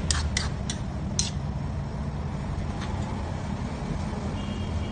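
Metal spoon clinking against a metal wok four times in the first second or so while stirring a coconut-milk stew, over a steady low hum.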